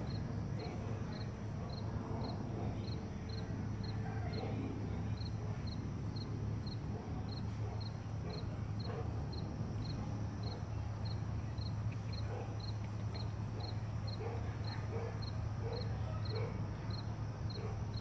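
Steady low hum overhead, which the recorder could not tell apart from a low airplane approaching. A dog whimpers in short high notes, mostly in the second half, over a faint regular tick about twice a second.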